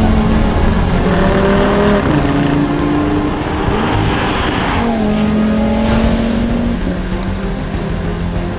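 ABT-tuned Audi TT RS-R's 500 hp turbocharged five-cylinder engine driven hard, its revs climbing and then dropping back twice, with one sharp crack about six seconds in.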